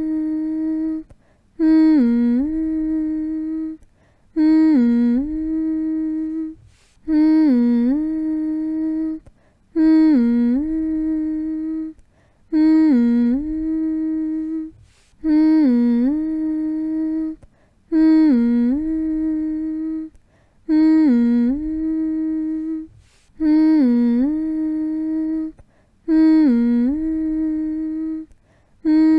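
A person humming the same short phrase over and over, about every three seconds: a quick dip in pitch, then a long held note, with a brief break before each repeat.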